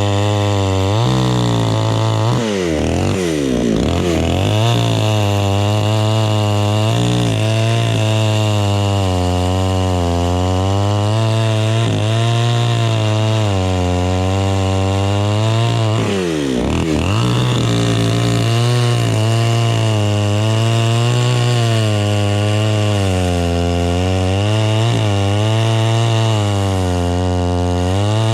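Two-stroke chainsaw running at high revs and cutting into jackfruit wood, its engine pitch wavering under load. The pitch dips sharply and recovers twice, about three seconds in and again about sixteen seconds in.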